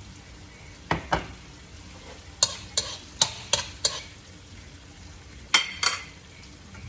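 Ground beef and basil sizzling in a pan while being stir-fried, the spatula clacking and scraping against the pan in short groups: twice about a second in, five times in quick succession around the middle, and twice near the end.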